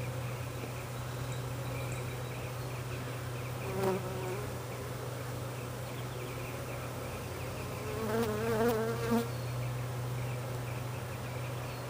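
Honey bees from an Italian package colony humming steadily as a mass around the open package and hive. A louder, nearer buzz that wavers in pitch comes about eight seconds in, with a briefer one near four seconds.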